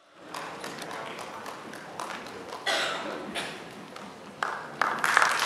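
Theatre audience with scattered claps and murmuring as performers come on stage, swelling into full applause right at the end.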